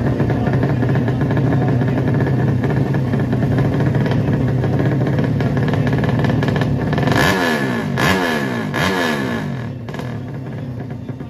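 Drag racing motorcycle engine running at a steady high pitch, then about seven seconds in its revs climb in three quick rising sweeps, like upshifts as the bike accelerates away down the strip. The sound drops off just after ten seconds.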